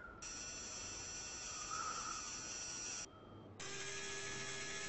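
Synthetic mechanism sound effect: a steady hiss with faint steady tones in it, like a machine running. It cuts off about three seconds in and starts again half a second later.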